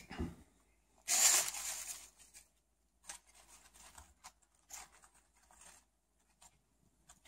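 Paste-soaked newspaper strip rustling and crinkling as hands lay it over crumpled newspaper for papier-mâché, with one louder papery rustle about a second in, then faint short rustles.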